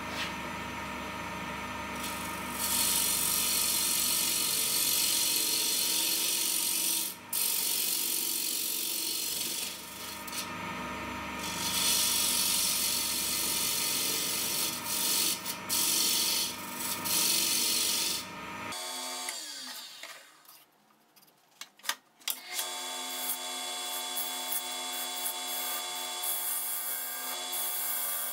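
Wood lathe running steadily while a spindle gouge cuts a spinning wooden bracelet blank, a hissing scrape that comes in repeated long passes. About two-thirds through the sound drops to near quiet with a few sharp clicks, then the lathe runs on with lighter cutting.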